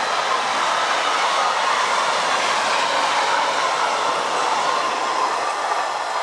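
Freight train of tank wagons rolling past at speed: a steady rush of steel wheels on rail.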